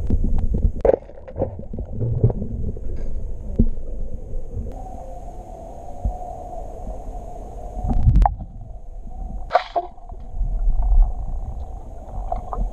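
Heard through an underwater microphone in a pool: a steady low rumble and gurgling of water. About eight seconds in comes a loud sharp crack as a band-powered Abellan Denton 120 speargun fires its 8 mm shaft. A second sharp hit follows about a second and a half later.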